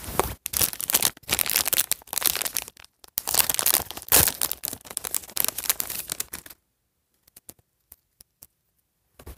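A small plastic packet from a toy unboxing is torn open and crinkled by hand, in irregular rustling bursts. Near the end the rustling stops, and only a few faint ticks follow.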